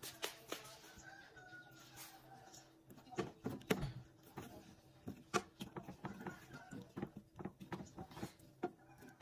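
Wooden spoon stirring a thick cream peppercorn sauce in a nonstick frying pan: irregular knocks and scrapes of the spoon against the pan, busier from about three seconds in.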